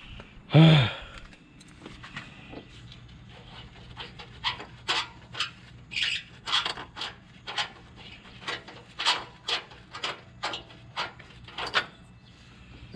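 Rusty oxygen sensor being turned out of a corroded exhaust manifold with an adjustable wrench: a run of short, irregular squeaks and scrapes, about one or two a second, from about four seconds in. Just under a second in there is one short, loud vocal sound.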